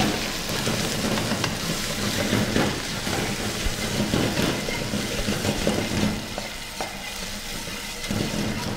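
Chicken cubes sizzling as they fry in oil in a saucepan, the water they released cooking off, with utensils scraping and clicking against the metal pans as they are stirred and whisked.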